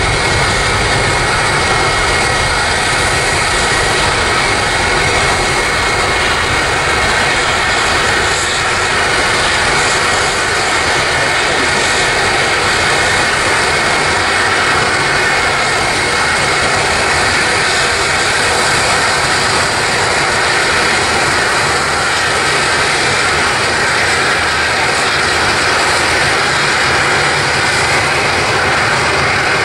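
Boeing 747 freighter's four jet engines at takeoff thrust during the takeoff roll and climb-out: a loud, steady roar with a faint high whine running through it.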